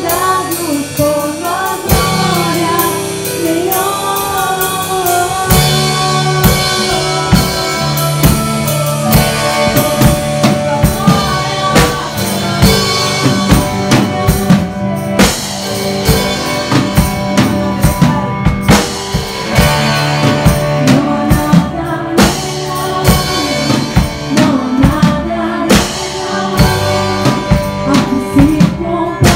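Live worship band playing: drum kit keeping a steady beat under guitars and keyboard, with women singing into microphones in long held phrases.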